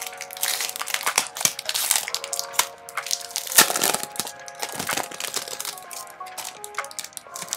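Clear plastic packaging sleeve crinkling and crackling as hands handle it, with many quick sharp crackles, the loudest a little past halfway. Soft background music with held notes plays underneath.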